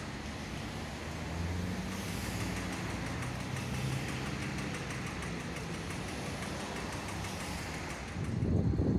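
Road traffic with a vehicle engine humming steadily and low. About eight seconds in, a louder low rumble cuts in.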